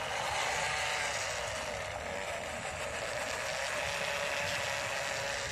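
MN99S 1:12 scale RC crawler's electric motor and gearbox whirring steadily as it drives over dirt, a high whine that wavers a little in pitch with the throttle.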